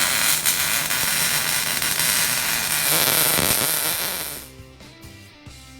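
A loud, steady hiss that fades away after about four and a half seconds, followed by background music with held notes.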